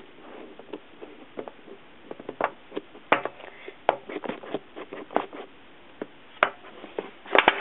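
Hands handling an iPod Touch's plastic display tray and box: irregular clicks, taps and light scrapes, with a louder cluster of clicks near the end.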